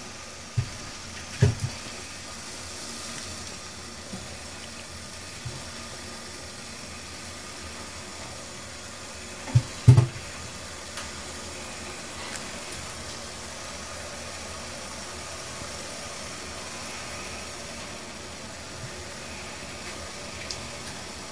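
Pot of water at the boil hissing and bubbling steadily, with a few knocks as ears of sweet corn are put in; the loudest pair of knocks comes about ten seconds in.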